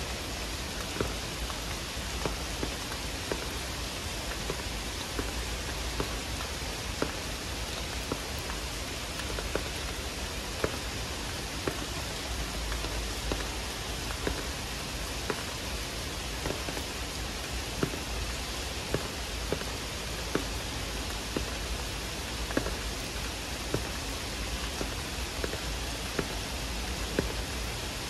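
Heavy monsoon rain pouring steadily, with individual drops tapping sharply close by every second or so.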